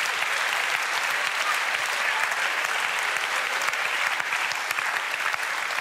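Audience applauding steadily, a dense stream of hand claps.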